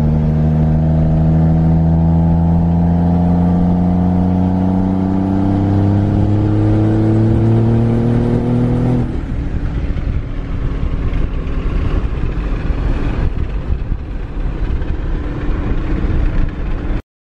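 A 5.9 Cummins turbo-diesel in a Dodge Ram pulling from inside the cab, its drone rising slowly in pitch for about nine seconds as the truck accelerates. Then the engine note drops away and a ragged rush of wind and road noise takes over until the sound cuts off.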